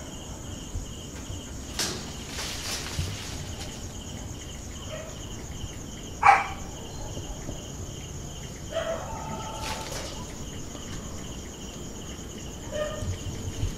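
Crickets chirping steadily in a fast, even pulse, with a few short clatters and knocks. A brief sharp sound about six seconds in is the loudest thing.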